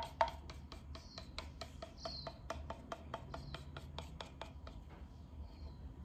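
Rapid, even scraping strokes, about five a second, as wet acrylic paint is worked with a hand tool; they stop about four and a half seconds in.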